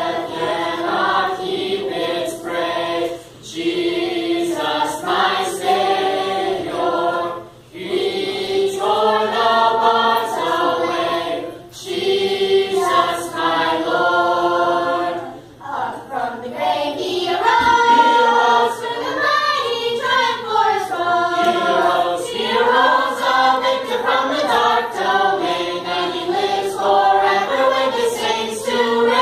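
A youth choir of girls, boys and young children singing together, in phrases several seconds long separated by short breaths.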